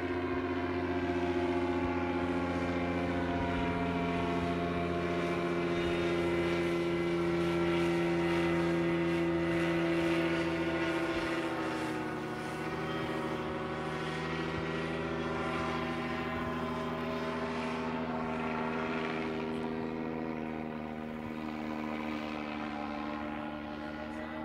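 Paramotor engine and propeller droning steadily overhead. Its pitch and level drop a little about halfway through, and it grows fainter near the end.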